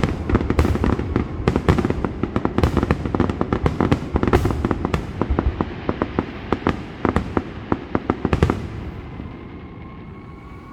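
Fireworks going off in rapid, overlapping volleys of sharp bangs and crackles over a continuous rumble, stopping abruptly about eight and a half seconds in, after which the rumble fades away.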